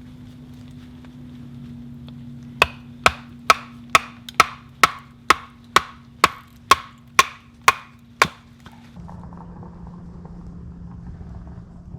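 Wood being chopped or struck with a blade: about a dozen sharp, even knocks, roughly two a second, that stop a few seconds before the end.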